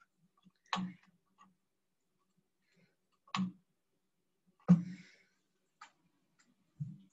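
A handful of separate sharp computer mouse clicks, about a second or more apart, as map layers are switched off.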